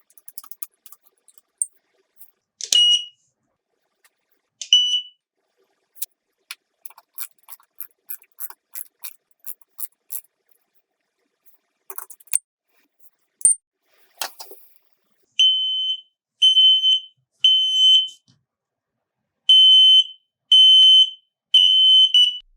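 Wireless smoke detector's alarm beeping in the fire pattern, three short high beeps, a pause, then three more, in the second half. Earlier come two single chirps from the same tone and a run of light clicks.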